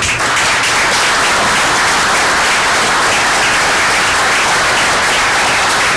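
Audience applauding, starting all at once and holding steady.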